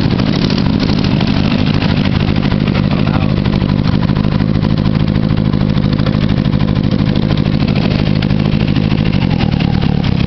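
ATV (quad) engines running steadily under load as the quads churn through a flooded, muddy ditch; a loud, dense, even rumble.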